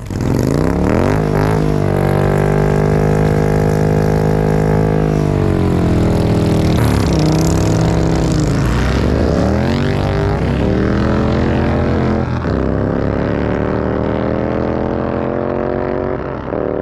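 An engine running and being revved. Its pitch rises about a second in and holds steady. It drops around five seconds in, swings up and down again around eight to ten seconds, then holds steady until it fades near the end.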